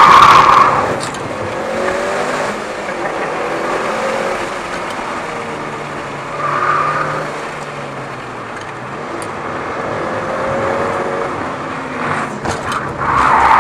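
Mitsubishi Lancer Evolution VIII's turbocharged four-cylinder engine lapping a race track, its note dropping away about a second in and then rising and falling with the throttle through the corners. A brief louder sound comes about six and a half seconds in, and the engine swells loud again near the end as the car accelerates.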